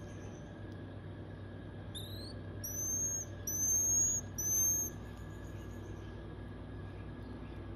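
Common marmoset calling: a short rising chirp about two seconds in, then three long, high, slightly rising whistles (phee calls) in quick succession, over a steady low hum.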